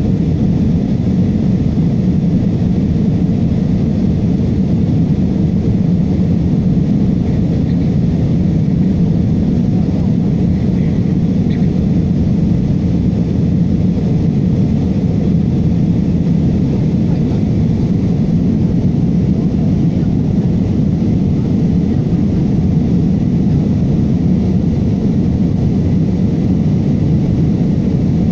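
Airbus A320 airliner cabin noise in the climb after takeoff: a steady, deep drone of engines and rushing air heard from a window seat inside the cabin.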